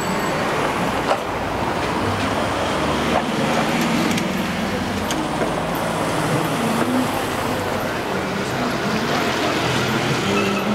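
Busy street ambience: a steady wash of road traffic from cars driving along a cobbled street, with faint voices of passers-by.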